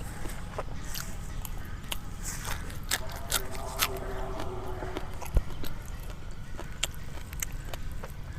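Close-up eating sounds of a whole spicy grilled chicken being eaten: chewing and tearing the meat, with irregular sharp clicks and crackles from the mouth and crisp skin.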